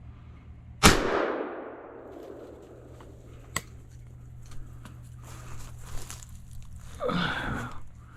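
A single shot from a 20 gauge single-shot break-action shotgun, its report dying away over about a second. A sharp click comes a few seconds later.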